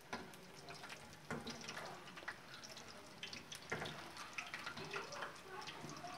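Battered green chili pakoras sizzling in hot oil, a steady fine crackle, with a few louder knocks as metal tongs turn them in the aluminium pot.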